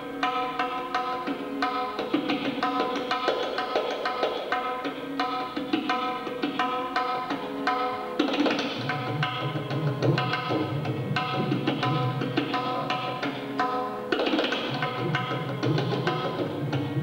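Tabla solo in the nine-beat tala Nashruk: fast, crisp drum strokes over a harmonium playing a repeating lehra melody. About nine seconds in, deep resonant bass strokes from the bayan join in and carry on to the end.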